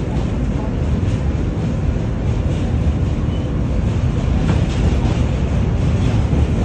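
Steady loud rumble of a train running on rails, heard from inside the car, with a few faint clicks from the wheels.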